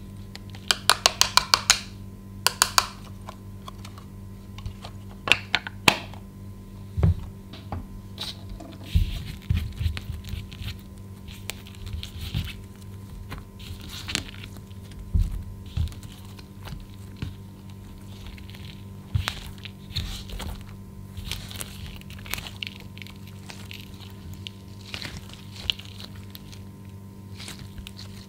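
A wooden stick clicks in a quick run against pressed eyeshadow in a plastic palette. Then hands knead and squish clear slime mixed with the crumbled eyeshadow powder, giving scattered soft crackles, pops and low thuds. A faint steady hum lies underneath.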